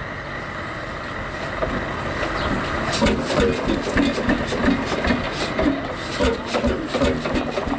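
Single-cylinder hot-bulb semi-diesel engine of an HSCS G-35 tractor. About three seconds in it starts firing in an uneven run of knocking beats, catching roughly after a hard start.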